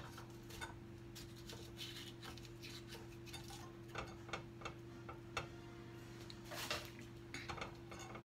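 Faint scraping and irregular small clicks as the soft insides of halved zucchini are scooped out with a utensil over a plate, the utensil now and then tapping the plate. A steady low hum runs underneath.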